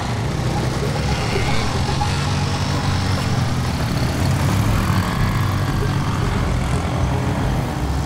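Several small motorcycle engines running together as a group of riders pulls away.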